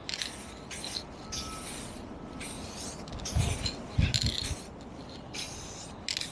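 Aerosol spray can hissing in short bursts, a little over one a second, as paint goes on in light passes. Two low thumps come around the middle.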